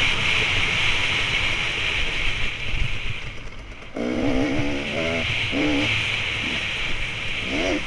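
Dirt bike engine running hard under throttle. It eases off a little past three seconds in, then opens up again with a rising, wavering pitch about a second later.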